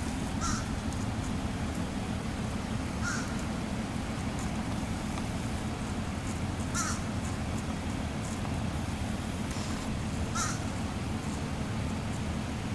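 Four short bird calls, about three seconds apart, like a crow's caw, over a steady low background rumble.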